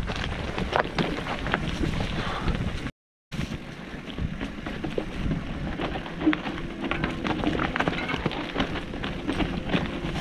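Mountain bike riding over a dry, leaf- and stone-strewn single track: tyres crunching and the bike rattling, with many small clicks and knocks and wind noise on the microphone. The sound cuts out briefly about three seconds in.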